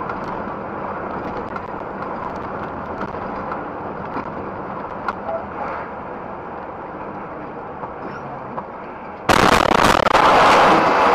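Truck driving with steady cab and road noise and a few light ticks; about nine seconds in, a sudden loud crash begins as the truck runs into the back of a line of stopped cars, and the noise stays loud to the end.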